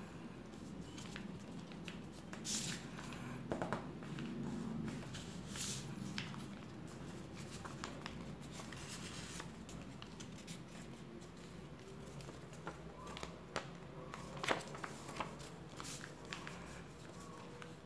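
A sheet of paper being folded and creased by hand: soft rustling broken by sharp crinkles and taps as folds are pressed flat, the strongest about two and a half, five and a half and fourteen and a half seconds in, over a low steady hum.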